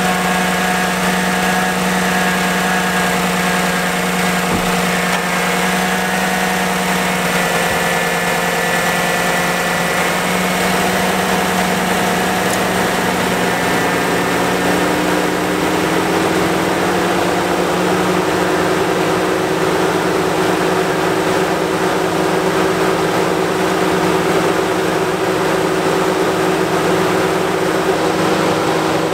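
Engine of a 2014–2019 GM full-size pickup idling steadily with the hood open, freshly started. It is an even mechanical hum with a tone that climbs slightly about halfway through.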